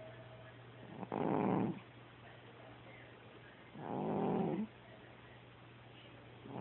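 A cat snoring loudly in its sleep: two snores, each under a second long, a little under three seconds apart, with a third starting at the very end.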